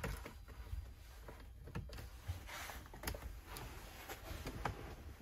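Faint room tone with scattered small clicks and knocks and a low rumble, the sounds of a handheld camera being moved about inside a boat's cabin.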